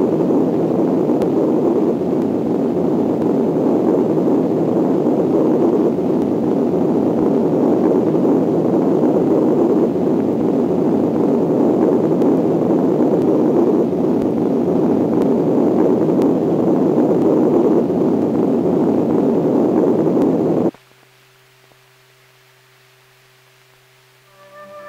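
Loud, steady rushing wind, a dubbed tornado-wind sound effect laid over silent 8mm footage of a tornado funnel. It cuts off suddenly about 21 seconds in, leaving only a faint low hum.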